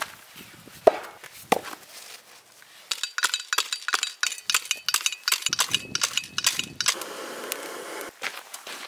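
A couple of sharp knocks, then a steel folding shovel scraping and digging into gritty, sandy soil in quick rasping strokes. Near the end a butane gas torch hisses steadily for about a second.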